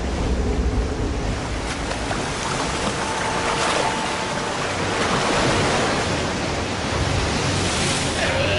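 Waves breaking and churning in shallow surf, with heavy splashing as an orca surges through the water.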